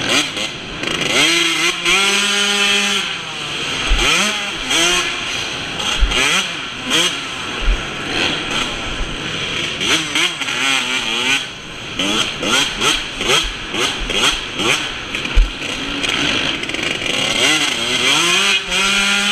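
Yamaha YZ125 two-stroke single-cylinder motocross engine under race riding, its pitch repeatedly climbing as the throttle is opened and dropping as it is rolled off between turns, with occasional short low thumps.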